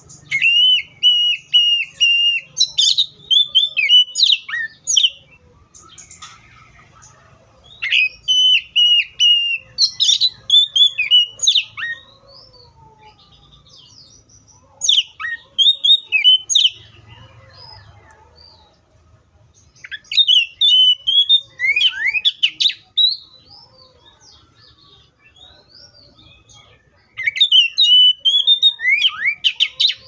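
Oriental magpie-robin singing in five loud bursts of song a few seconds apart. The first two bursts open with a run of repeated clear whistled notes, then break into quick, varied whistles and chirps.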